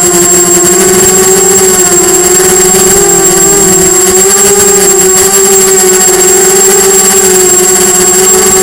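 Brushless motors and propellers of a 250-size quadcopter (Diatone Blade 250) whining loudly, heard from close up through its onboard camera. The pitch wavers up and down a little with throttle changes, with a steady thin high-pitched whine above it.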